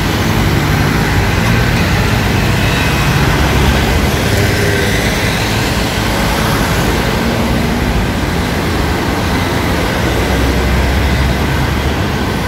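Town street traffic: cars driving slowly past close by, their engines running under a steady wash of road noise.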